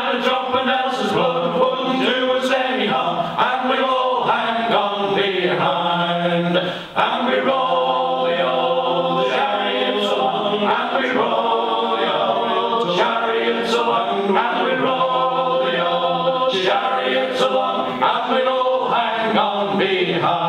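A male vocal group singing a sea shanty a cappella in close harmony, with a brief pause for breath about seven seconds in.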